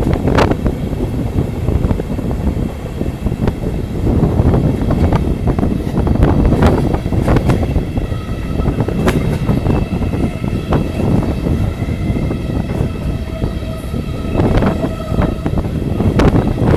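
Passenger coach wheels running on the rails, a steady rumble with wind and sharp clicks over rail joints and points. From about halfway a thin, steady squeal of wheels on a curve joins in.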